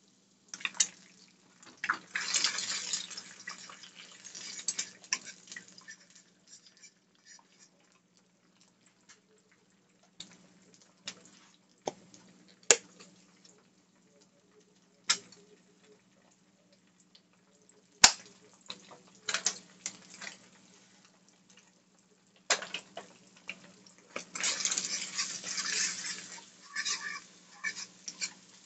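Eggs sizzling in a nonstick skillet while a fork scrambles them, scraping and tapping sharply against the pan a few times. The sizzle comes in stretches early on and again near the end, over a faint low hum.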